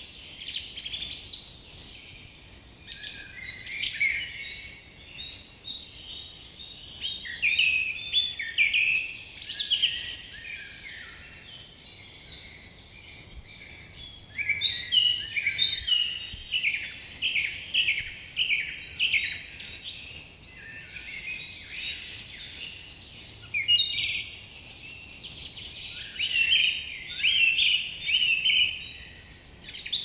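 Songbirds singing and chirping in a busy chorus of short, quick notes and fast runs of repeated down-slurred notes, with no pause.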